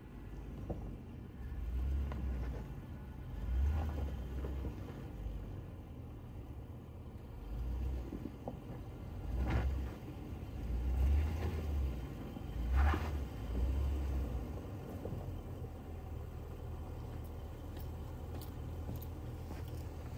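Land Rover LR4 driving slowly off-road, a low rumble that swells and eases several times. Two short knocks come around the middle.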